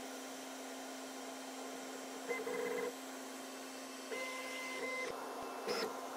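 QIDI Q2 CoreXY 3D printer running with a steady hum, its stepper motors whining through short printhead moves: one about two seconds in, a longer one of about a second at four seconds, and a brief higher chirp near the end.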